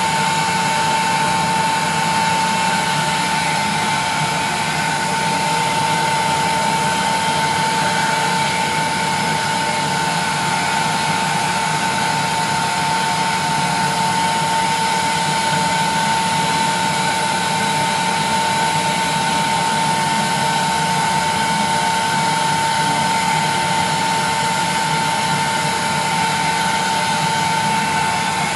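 Electric heat gun running steadily, a rush of blown air with a constant high whine from its fan motor, held to the glass face of a CRT picture tube to heat it.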